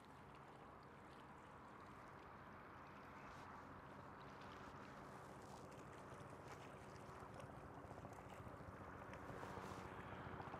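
Faint steady waterside ambience: a low hum under a soft hiss, slowly growing a little louder.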